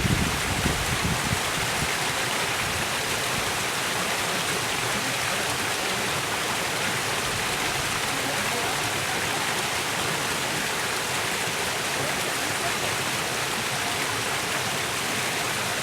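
Steady rushing of a waterfall's falling water, with a brief low rumble in the first second or so.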